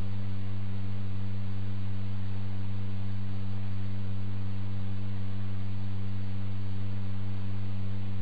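A steady, unchanging low electrical hum with a few overtones above it, with no other sound on top.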